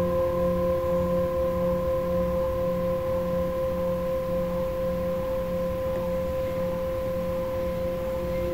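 Himalayan singing bowls tuned to F, ringing on after being struck: a steady hum of several tones together, the lowest wobbling about twice a second, fading slightly.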